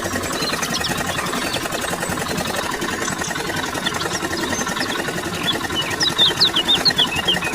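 A small motor running steadily with a fast, even rattle. Near the end a quick flurry of short, high chirps rides over it.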